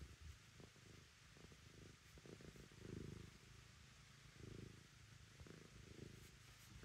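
Tabby-and-white cat purring softly while being stroked, the low purr swelling and fading with its breathing about every second and a half.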